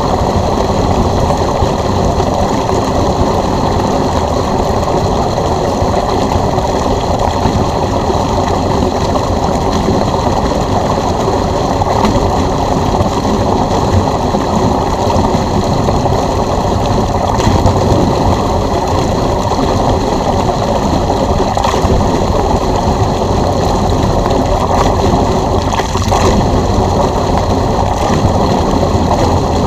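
Water rushing steadily out of a pool drain hose driven by an electric pool pump, a dense continuous churn with no let-up.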